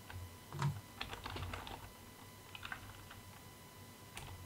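Light keystrokes on a computer keyboard: a few short, scattered taps as a short word is typed into a search box.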